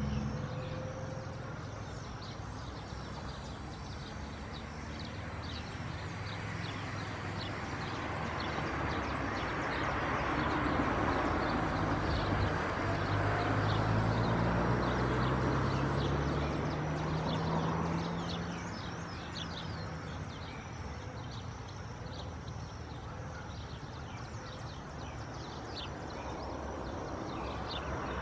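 Outdoor ambience with many short, high bird chirps. A broad rushing noise swells up in the middle and fades away again, with a faint low drone rising under it.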